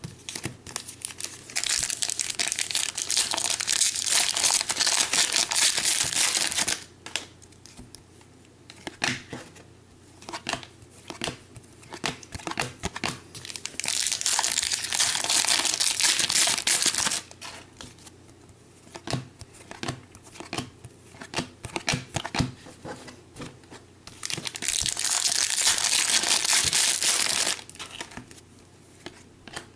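Foil wrappers of Panini Prizm football card packs being torn open and crinkled: three long, dense crinkling stretches, with small clicks and taps of handling in the quieter gaps between them.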